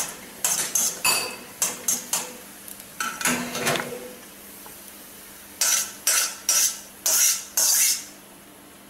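Metal spoon clinking and scraping against a stainless steel kadai while roasted cashews in ghee are stirred and scraped out, each strike ringing briefly. Quick clinks come through the first two seconds, a longer scrape about three seconds in, and a run of louder clanks from about five and a half to eight seconds as the pan is emptied.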